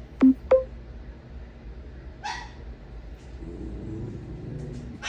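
A dog giving two short, sharp barks in quick succession, each a quick drop in pitch.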